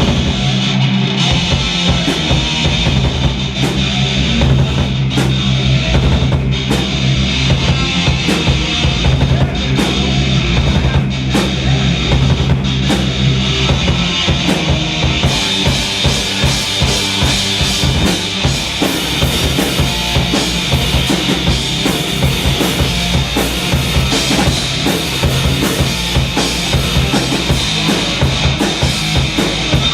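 Live stoner rock band playing an instrumental passage, driven by a drum kit with a pounding kick and snare under a dense wall of guitar and bass. About halfway through the sound grows brighter.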